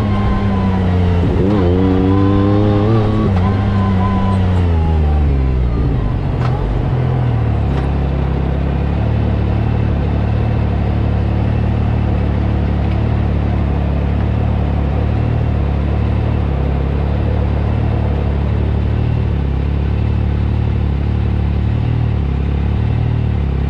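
Yamaha YXZ1000R SS side-by-side's three-cylinder engine revving with rising and falling pitch for the first few seconds, then dropping to a steady idle.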